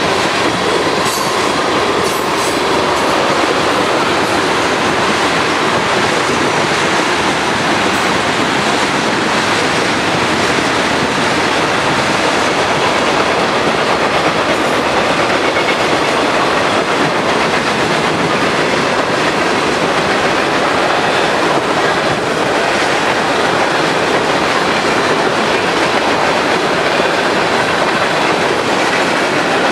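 Steady rumble of a CN freight train's steel wheels rolling on the rails as tank cars and covered grain hoppers pass close by, with a few faint ticks in the first few seconds.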